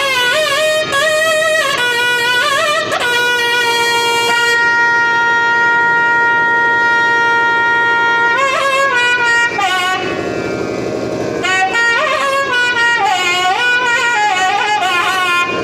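Nathaswarams, the long South Indian double-reed pipes, playing raga Sindhu Bhairavi: quick ornamented phrases that slide between notes, then a long held note from about three to eight seconds in, then gliding phrases again.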